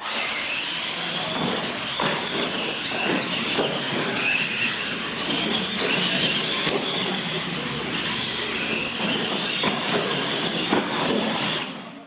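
Electric RC monster trucks racing on a concrete floor: a high motor whine that wavers with the throttle over tyre noise, with scattered knocks as the trucks hit the launch ramps and land. It starts suddenly at the launch and fades out near the end.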